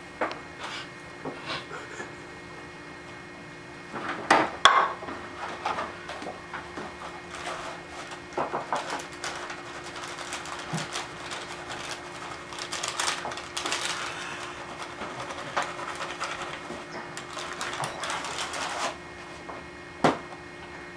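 Kitchen handling sounds: a few knocks and clatters, the loudest about four seconds in, then a long stretch of plastic crinkling and rustling as pancake mix is shaken out of its plastic bag into a bowl, and a sharp knock near the end.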